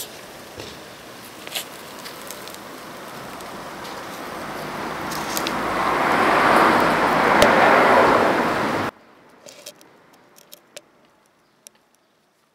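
A passing vehicle's rushing noise swells over several seconds, peaks, and is cut off abruptly about nine seconds in. A few faint clicks follow, then near silence.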